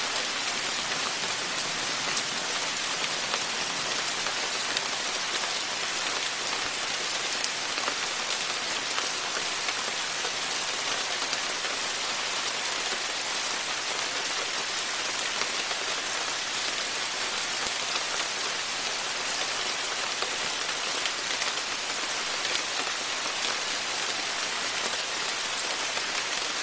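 Steady rain falling: a continuous hiss with scattered sharper ticks of single drops.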